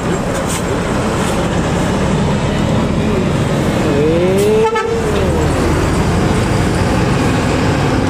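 A tour bus's diesel engine running as it drives past close by. About four seconds in, its telolet horn sounds one short tone in two voices that rises and then falls.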